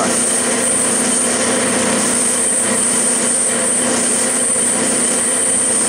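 Clausing metal lathe running steadily at about 700 rpm with an even machine hum and a steady high whine, as the tool is fed slowly through a finishing cut in a V-pulley groove.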